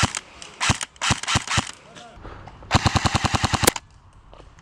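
Airsoft rifles firing: a few single shots in quick succession, then, about two and a half seconds in, a full-auto burst of about a dozen rapid shots lasting roughly a second.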